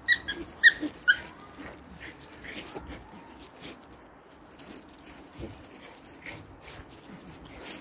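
Three-month-old Jagdterrier puppy giving about four short, high-pitched cries in quick succession in the first second, then going quiet apart from faint scattered ticks.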